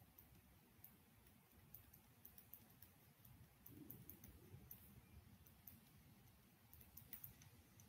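Near silence with faint, scattered clicks of a stylus tapping on a tablet screen during handwriting.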